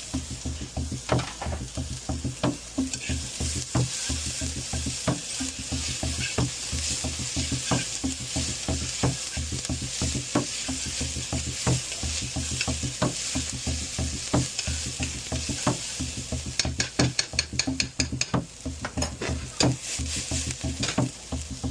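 Diced yellow onion and garlic sizzling in olive oil in a pan, with a utensil stirring and clicking against the pan every second or so. Near the end comes a quick run of taps.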